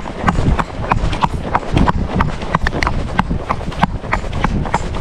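Ex-racehorse's hooves clip-clopping in a steady, even rhythm of about three to four hoofbeats a second as the horse is ridden.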